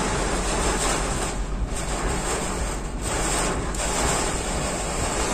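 Heavy rain hitting the car's roof and windshield in a strong windstorm, a dense steady hiss heard from inside the cabin.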